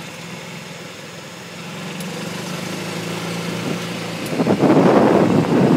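Golf cart driving along a street, its motor running with a steady hum. About four seconds in, wind starts buffeting the microphone loudly.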